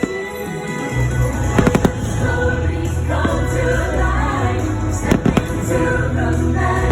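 Fireworks show soundtrack music with choral singing over loudspeakers, a deep low end coming in about a second in. Sharp firework bangs cut through it, a cluster about a second and a half in and another just after five seconds.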